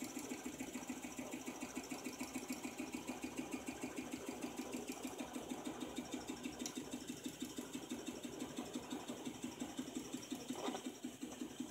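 Half-scale Essex caloric (Stirling-cycle hot-air) engine running steadily on torch heat, its moving parts making a rapid, even mechanical clatter. Behind it runs the steady hiss of the gas torch flame, and a single sharper tick sounds near the end.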